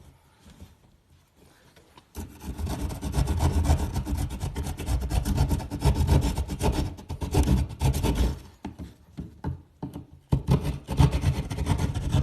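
Rough rasping and scraping strokes, as of something being cut or worked to enlarge it. They start about two seconds in, go quiet briefly near the middle, and pick up again toward the end.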